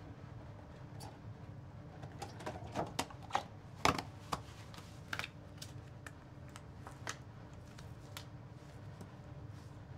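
Rubber swim cap being stretched and pulled on over the head: a quick run of rubbery snaps and clicks, loudest about four seconds in, then a few scattered ticks over a low steady room hum.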